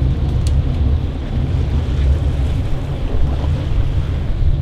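Strong wind buffeting the microphone on a boat at sea, a heavy steady rumble with the wash of the sea beneath it. One short click about half a second in.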